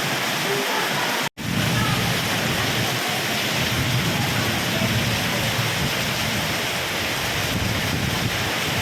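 Heavy rain pouring down in a steady, dense hiss, with a split-second break in the sound about a second in.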